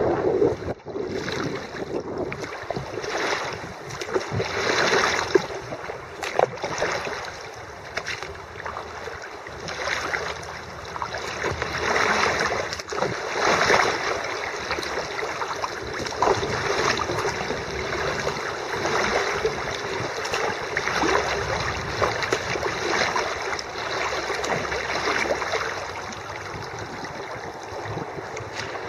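Water splashing and sloshing around a kayak on a flooded river, swelling and fading every second or two, with small sharp splashes and knocks throughout.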